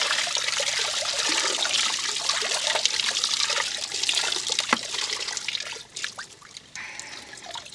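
Alum tanning solution running and splashing from a wet deer hide being wrung out by hand into a plastic tub of liquid. After about five seconds the flow thins to scattered drips.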